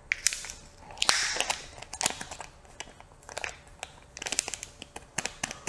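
A silver foil packaging bag crinkling and crackling in irregular bursts as it is handled and pulled open.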